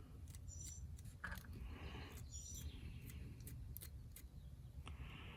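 Quiet room tone with faint, irregular ticking about two to three times a second and two brief high chirps, one near the start and one about halfway through.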